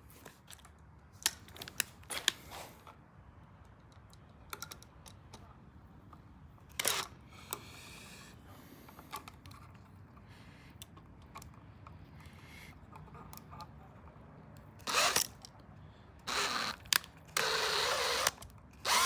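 Scattered clicks, taps and knocks of tools and parts being handled, then near the end three short bursts of a cordless drill running, each lasting under a second.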